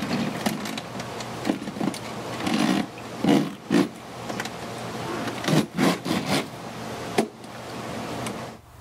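Plastic polymesh screen being handled and pressed down over a plastic fountain grate: irregular rustling and scraping, with a few sharp clicks and knocks.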